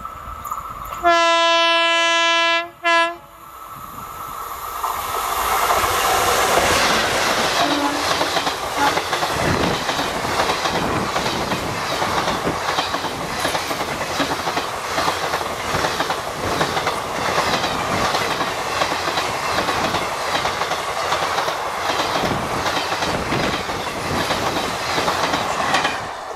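Horn of a WCAM-2P electric locomotive sounds one long blast and a brief second toot about a second in. Then the 24-coach express passes close by at speed, its wheels clattering rhythmically over the rail joints, rising to full loudness a few seconds after the horn.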